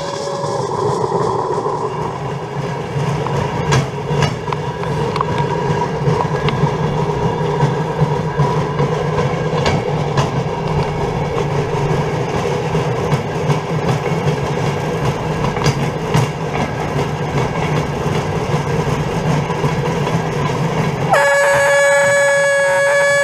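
Pedal-powered rail bike's wheels rolling along old railway track: a steady rumble with occasional sharp clicks. Near the end a different sound with steady tones takes over.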